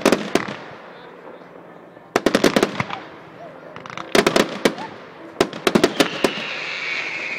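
Fireworks exploding overhead in four quick volleys of sharp, crackling bangs, each a rapid string of cracks, with a high, slightly falling whistle near the end.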